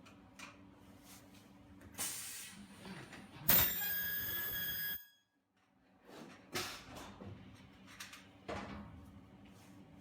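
Ultrasonic plastic welding machine running a weld cycle. A hiss of air comes about two seconds in, then a loud, steady high-pitched squeal for about a second and a half that cuts off suddenly. Shorter air hisses and clicks follow.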